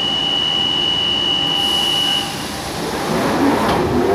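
London Underground Central line train (1992 Stock) giving its door-closing warning, a steady high beep held for about two seconds. The sliding doors then rumble shut and are closing near the end.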